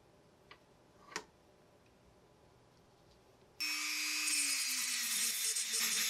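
A rotary tool with a small sanding disc starts sanding a steel pocket-knife liner a little past halfway. The disc makes a loud, gritty scratching over the motor's whine, and the whine drops slightly in pitch as the disc bears on the metal. Before that there is only faint room tone and a couple of light clicks.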